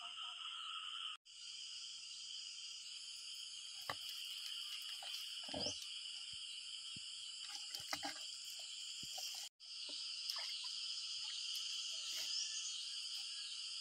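Steady chorus of calling frogs and insects, cutting out briefly about a second in and again near the ten-second mark. A few soft knocks sound over it.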